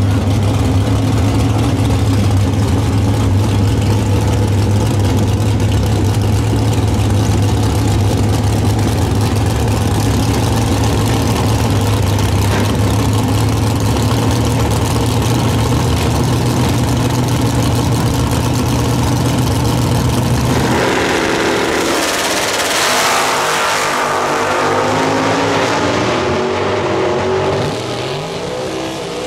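Chevrolet Nova drag car's engine idling steadily at the start line, then, about 21 seconds in, launching at full throttle alongside a second car. Its note rises in pitch through the gears and fades as the cars pull away down the strip.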